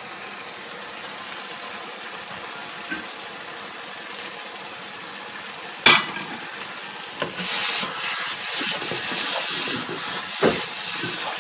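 Chopped mango pickle mixture sizzling softly in a frying pan, with one sharp knock on the pan about six seconds in; from about seven seconds a wooden spoon stirs it in, bringing louder, uneven scraping and sizzling.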